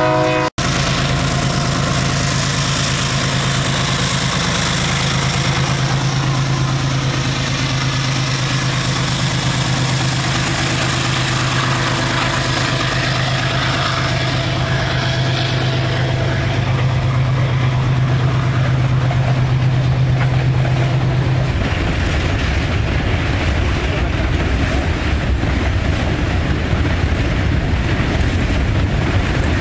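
Freight train passing: a train horn cuts off about half a second in, then a diesel locomotive's steady low drone runs over the noise of the rolling train. About two-thirds of the way through it changes abruptly to the plain rumble of freight cars rolling by on the rails.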